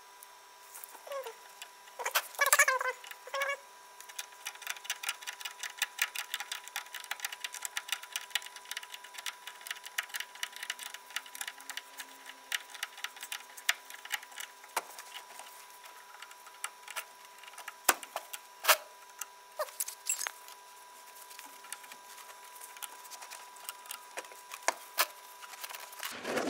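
Ratchet wrench clicking in quick runs as the brake caliper's bolts are turned in, with scattered knocks and clinks of metal tools and parts.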